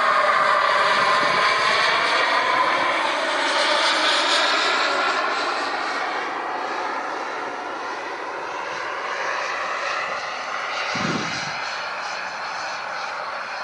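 Skymaster T-38 Talon RC jet model flying overhead: its jet engine whine sweeps down and back up in pitch as it passes, then grows fainter as it flies off. A brief low thump comes near the end.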